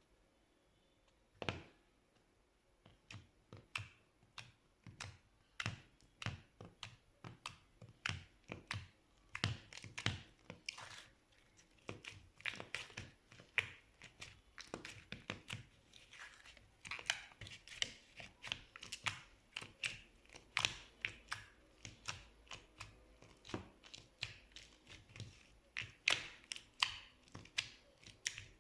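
Slime being squeezed and poked by hand, giving a long run of irregular short clicks and pops, about two or three a second. A single pop comes about a second and a half in, and the steady run starts a little later.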